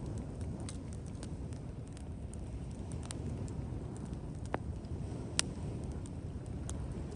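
Wood fire crackling with scattered sharp pops, the loudest about four and a half and five and a half seconds in, over a steady dense low patter of hands tapping the shoulders in tapotement massage.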